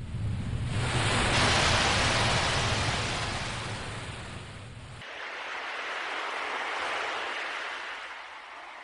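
Sea waves washing in: a big swell builds about a second in and fades away, then a second, softer swell rises and falls.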